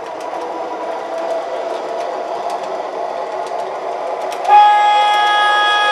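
MTH Proto-Sound 3 O-gauge PCC streetcar model running on three-rail track, its running sound growing as it pulls away, with light clicking. About four and a half seconds in, its onboard sound system blows a loud, steady horn chord that holds on.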